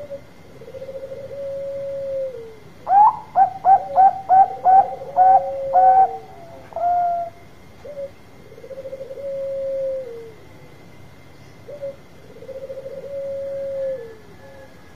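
Bangkok-type zebra dove (perkutut) cooing: long rolling low coos that drop in pitch at the end, three times, and about three seconds in a loud run of about eight short rising notes.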